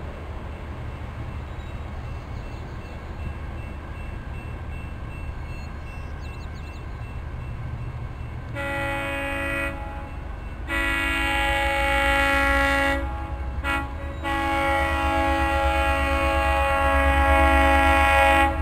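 Diesel train's multi-note air horn sounding a series of blasts over the low rumble of the approaching train: a short blast about halfway through, a longer one, a brief toot, then a long blast held to the end, while the rumble grows louder.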